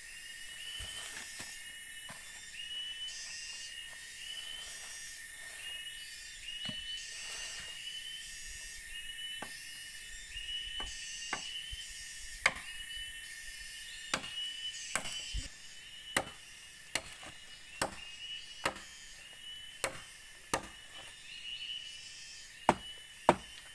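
Machete chopping green bamboo: single sharp chops, a few scattered at first, then a steady run of about one a second through the second half, the loudest near the end. Behind them, repeating chirps and a high buzzing go on throughout.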